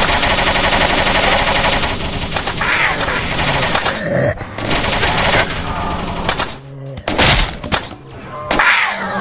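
Rapid, continuous shots like automatic gunfire, starting abruptly, with a voice shouting over it twice.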